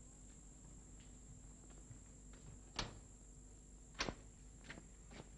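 A quiet old film soundtrack with a faint hiss and a steady high whine, broken by two sharp clicks a little over a second apart, then two fainter ones near the end.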